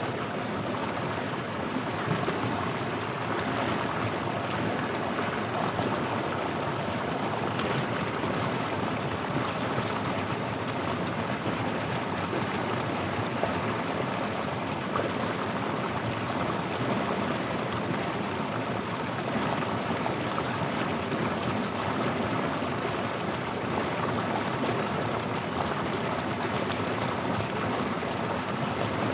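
Fast-flowing floodwater rushing steadily, an even, unbroken stream sound.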